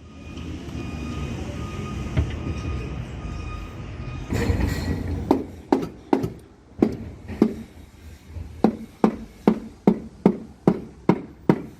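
A steady low rumble for about four seconds, then a run of sharp knocks, irregular at first and then settling to an even two to three a second.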